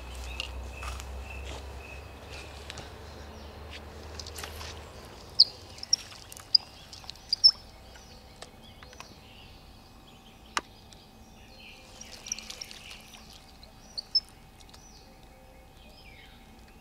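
Birds calling around a reedy pond: short, high chirps in two bouts, about five seconds in and again around twelve seconds, over a faint outdoor hush. A low rumble runs through the first five seconds, and a single sharp click comes about ten seconds in.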